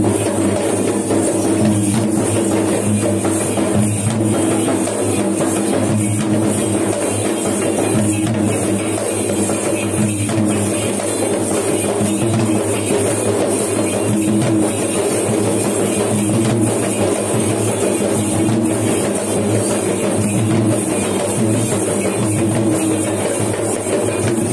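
Sri Lankan low-country ritual drumming on yak bera drums accompanying the Thelme dance: a loud, continuous, fast run of drum strokes with no pause.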